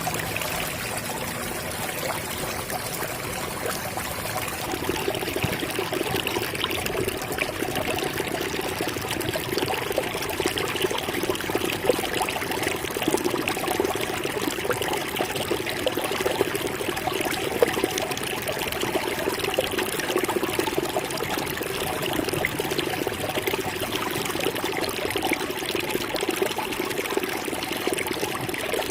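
Water running and trickling steadily, a continuous splashing flow that grows a little fuller about five seconds in.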